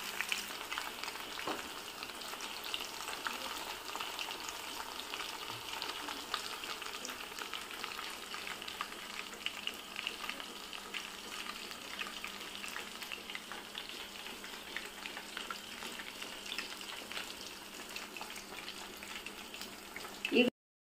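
Chicken kebab pieces deep-frying in hot oil: a steady crackling sizzle full of small pops. Near the end there is a short clatter, and then the sound cuts off suddenly.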